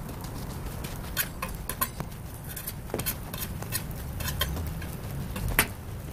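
Metal tongs clicking and scraping against a flat griddle as hotteok are flipped: scattered sharp metallic clicks, the loudest near the end, over a steady low rumble.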